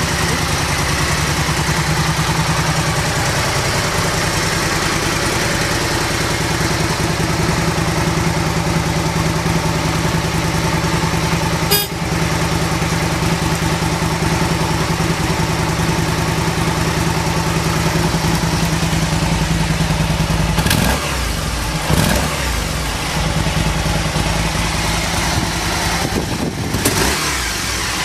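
Aprilia RST1000 Futura's 998 cc V-twin idling steadily, with a few short blips of the throttle in the last third and a single sharp click about twelve seconds in. The seller lists the engine as running without abnormal noises.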